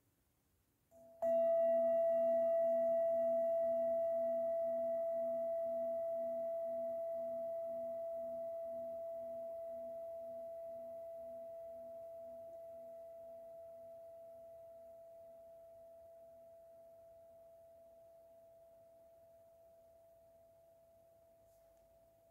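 A metal singing bowl struck once about a second in, ringing with one strong tone over fainter higher ones and a lower tone that wavers about twice a second, fading slowly.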